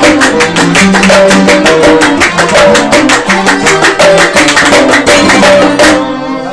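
Kuwaiti sawt ensemble of violins, qanun and mirwas hand drums playing, with a fast, steady drumbeat under the melody. The music stops suddenly near the end and voices take over.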